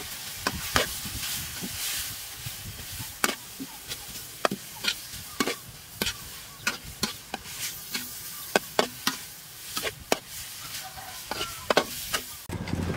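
A metal spatula and ladle clinking and scraping against a steel wok, in irregular strikes, as noodles and shrimp are stir-fried over a steady low sizzle. Near the end the sound changes to a steady low hum.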